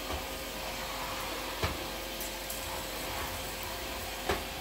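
Vacmaster 2.5-gallon, 2-peak-horsepower shop vac running steadily with a constant whine. Two sharp knocks sound over it, one about a second and a half in and one near the end.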